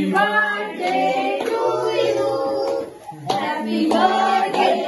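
Voices singing, with a short break about three seconds in.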